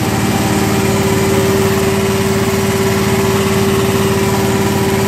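1 HP milking machine's motor and vacuum pump running steadily while milking, a loud even hum with a steady tone.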